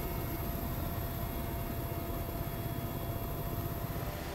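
Aircraft in flight: a steady low engine drone with a few faint steady whining tones above it.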